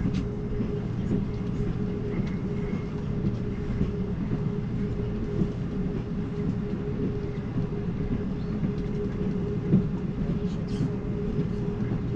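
Steady rumble and rolling noise of an Amtrak Cascades passenger car in motion, heard from inside the coach, with a steady hum. There is a single sharp knock about ten seconds in.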